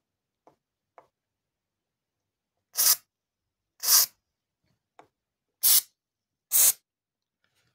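Aerosol can of silicone lubricant spraying in four short hissing bursts onto a door's metal hinges, to stop the squeak of metal rubbing on metal. A few faint clicks come before the first burst.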